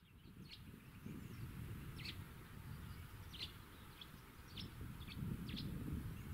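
Small birds chirping in short, high calls, one every half second to a second, over a low rumbling background noise.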